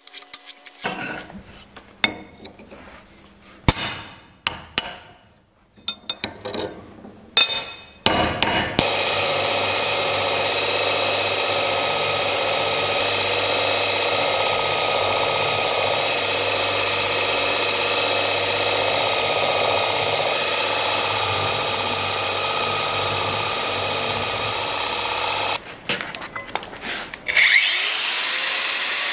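Clanks and knocks of steel being handled and clamped in a vise. Then a bench belt grinder runs steadily for about seventeen seconds as a steel piece is ground against the belt. Near the end an angle grinder starts up, rising in pitch.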